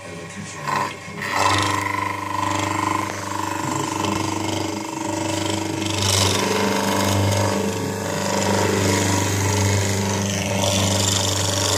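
Electric motor of a shoemaker's nibbler starting about a second in and running with a steady hum while it cuts a double leather sole fed into its cutting head.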